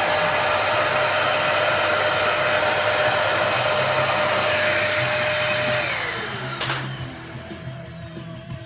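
Small electric blower motor running steadily, rushing air with a high whine, then switched off about six seconds in and spinning down with falling pitch; a click follows as it winds down.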